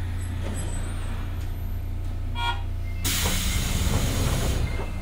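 Sendai Subway 1000N series car standing at a station, heard from inside: a steady low equipment hum, a short electronic tone about two and a half seconds in, then a loud hiss of compressed air lasting about a second and a half.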